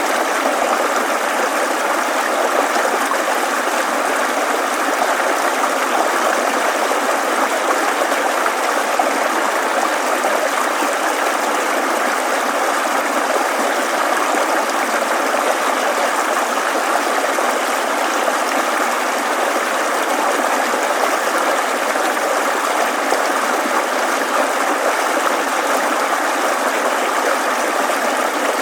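Recorded babbling stream, a steady even rush of flowing water, with light snips of scissors cutting paper.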